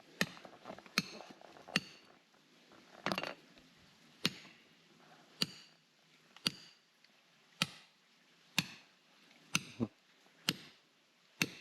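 Hammer striking rock in a steady series of sharp, ringing taps, about one a second. The rock is being tapped to listen for a hollow inside it, and the sound is taken as a sign of a void.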